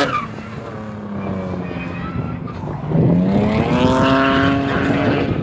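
BMW drift car engine: the revs sag away over the first few seconds, then climb sharply about three seconds in and are held high.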